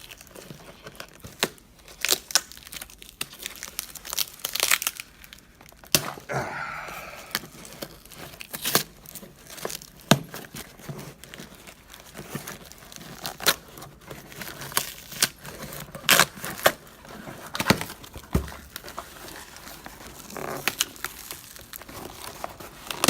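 Packing tape being torn and ripped by hand off a cardboard parcel, with crinkling of tape and box and sharp, irregular rips and cracks throughout.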